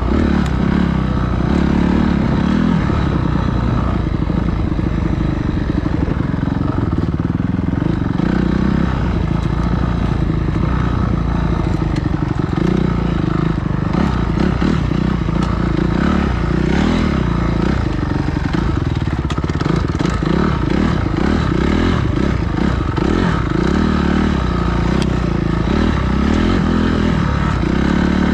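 Dirt bike engine running hard, its pitch rising and falling as the throttle opens and closes, with clattering knocks from the bike throughout.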